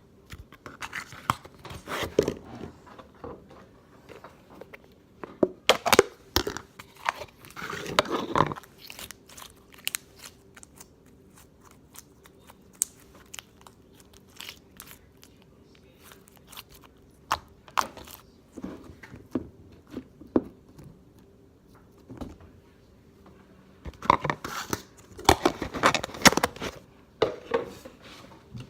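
Slime being squished and worked by hand, making sticky crackling and popping clicks. The clicks come in bursts, with quieter scattered pops in between.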